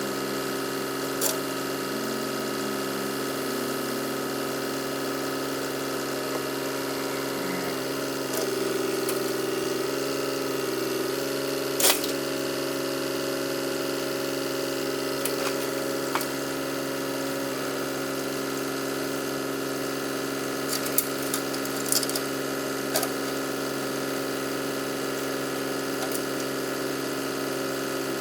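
An engine running at a steady speed, its pitch shifting slightly for a few seconds about a third of the way through, with a few sharp clanks, the loudest about twelve seconds in.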